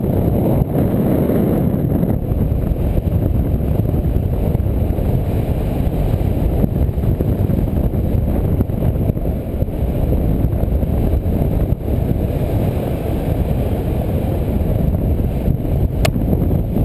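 Wind rushing over the camera microphone during paraglider flight, a steady low buffeting rumble. A single sharp click near the end, as the camera is knocked by the harness or risers.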